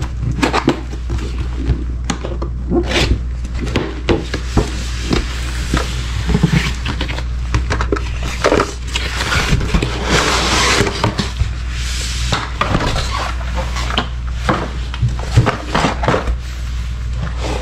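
Cardboard packaging being opened and handled: a retail box and its inner cardboard tray rubbed, scraped and tapped, with a longer sliding scrape about nine to eleven seconds in. A steady low hum runs underneath.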